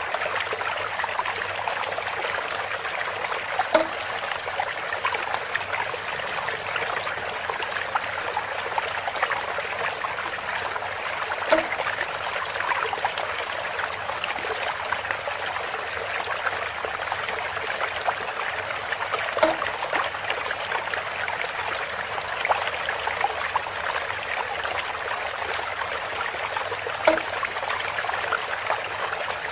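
Water trickling steadily through bamboo, with a short knock about every eight seconds, four in all.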